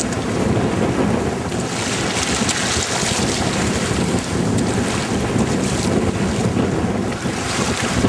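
Wind buffeting the microphone over the rush and splash of water along the hull of a Duncanson 18 sailing yacht moving fast under sail. A louder hiss of water and wind swells about a second and a half in and eases about six seconds in.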